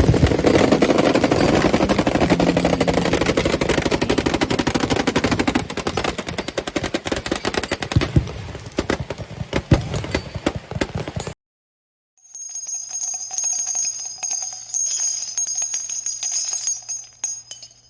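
Many guns firing rapidly at once in a mass full-auto volley, a dense crackle of shots that thins out and then cuts off suddenly. After a second of silence, a quieter steady tone with scattered ticking follows.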